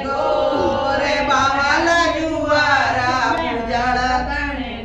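Women singing a Rajasthani Gangaur folk song (Gangaur geet) together, with long held notes that waver in pitch.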